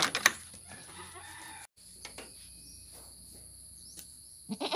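Goats bleating: the tail of one wavering bleat with a couple of sharp knocks just after the start, a quiet stretch, then the start of another bleat right at the end.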